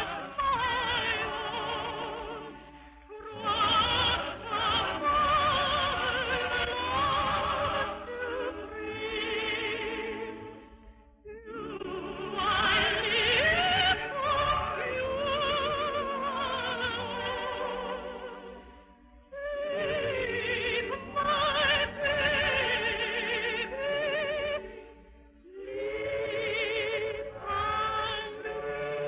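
A singer performing an operetta song in operatic style with strong vibrato and orchestral accompaniment, in long phrases broken by brief pauses. The sound is that of an old 1950 radio broadcast transcription, dull and without high treble.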